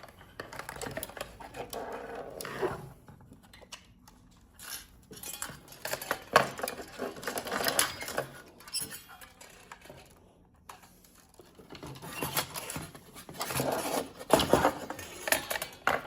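The plastic case and inner parts of a GE Simon XT alarm panel, which has no screws, being pried apart and handled: irregular clicks, scrapes and clatter in several busy spells with short lulls between.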